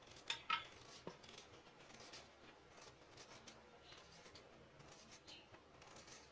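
Kitchen knife shaving the skin off a white radish (mooli) in short, faint scraping strokes, a few louder ones in the first second.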